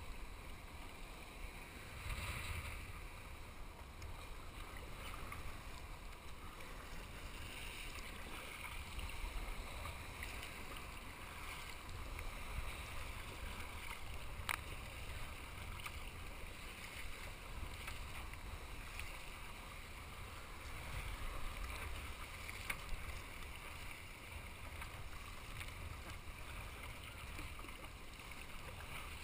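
Sea water churning and foaming around a kayak in rough white water, a steady rushing that swells and eases, under a low rumble of wind on the microphone. A single sharp click is heard about halfway through.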